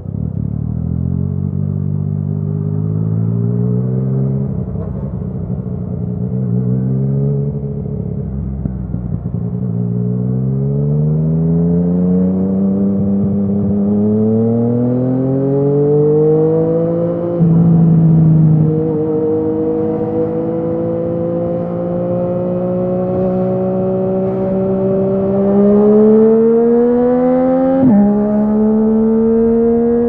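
Yamaha MT-09's inline three-cylinder engine through an Akrapovic exhaust, pulling through the gears under acceleration. The pitch climbs in each gear and drops at each of about four upshifts, and holds nearly steady for a long stretch past the middle before the last shift near the end.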